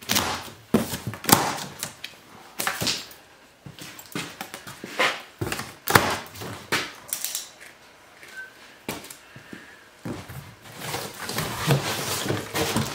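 Plastic packing straps being cut and a cardboard shipping box being opened: irregular sharp snaps and knocks, then cardboard flaps rustling and scraping near the end.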